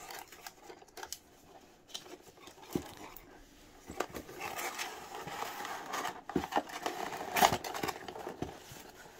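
A plastic floodlight unit being lifted out of its cardboard packaging tray: scattered light knocks and clicks with rustling cardboard, busier in the second half and loudest about seven and a half seconds in.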